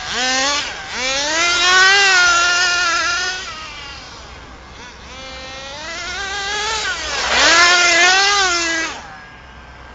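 HPI Rush Evo nitro RC truggy's small two-stroke glow engine revving hard as it drives, its high whine rising and falling with the throttle. It fades off into the distance, comes back and passes close by near the end, the pitch dropping as it goes past.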